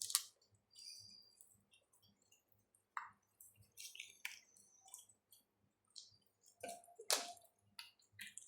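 Soft, scattered wet squishes and clicks of a clay-and-soap slime being mixed.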